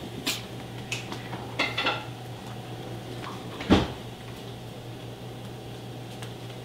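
A few light clicks and clinks, then one sharp knock a little under four seconds in: hard objects knocking about as a Yorkshire terrier plays near its toy ball and feeding bowls.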